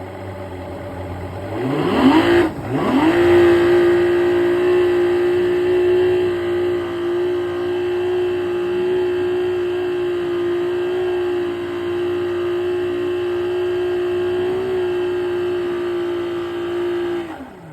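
Johnson 150 V6 two-stroke outboard with freshly replaced carburetor float bowls, throttled up from idle about two seconds in with a brief stumble, then held at steady high revs before dropping back toward idle near the end. It holds the revs evenly, running well.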